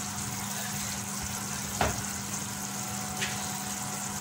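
Chicken pieces sizzling and simmering in their spiced juices in an open pot on the stove, with a steady low hum under it. A single sharp click comes just under two seconds in, and a fainter tick a little after three seconds.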